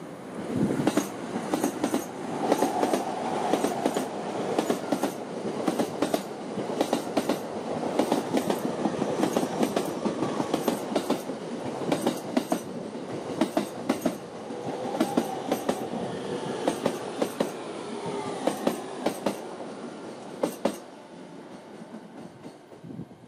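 Stainless-steel electric commuter train in green-and-orange stripes, an E231 series set, passing close on the near track: a loud rumble with its wheels clacking over the rail joints several times a second. It fades about three seconds before the end as it draws away, and a faint wheel squeal glides in late on.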